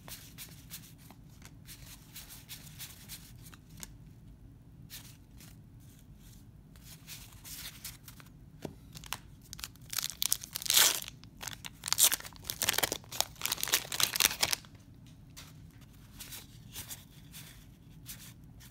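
Soft clicking of baseball cards being flicked through a stack, then, about ten seconds in, a 1991 Donruss wax pack being torn open: loud tearing and crinkling of the paper wrapper for four to five seconds. Softer card flicking follows near the end.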